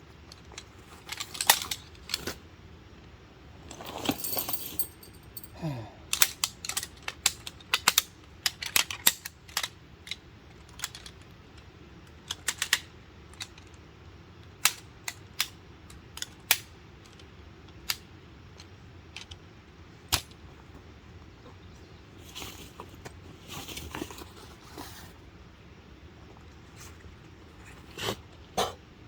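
Camp gear being handled: a long, irregular run of sharp clicks and light taps, with a few short bursts of rustling.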